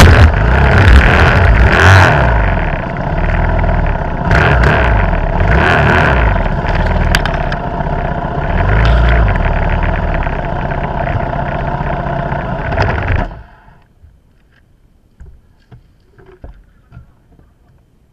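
Dirt bike engine running loudly with the bike down on its side, surging in the first couple of seconds, then cutting out abruptly about 13 seconds in. After that only a few faint knocks.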